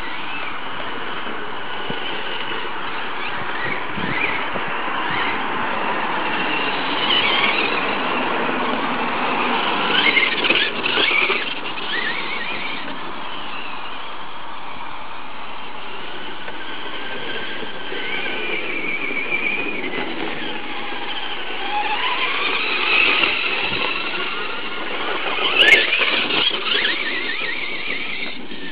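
Electric motors and gears of two Traxxas Stampede RC trucks, one brushless VXL and one brushed XL-5, whining as they are driven hard, the pitch rising and falling with throttle. The whine swells about ten seconds in and again near the end, where a sharp tick cuts through.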